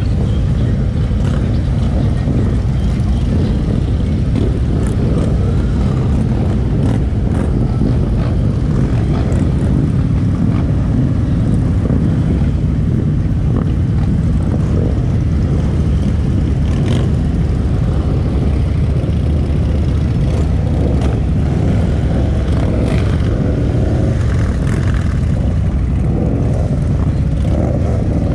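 Kawasaki Vulcan 1700 Vaquero V-twin motorcycle running at a steady cruise on the road. The sound is loud and even, with no revving or gear changes standing out.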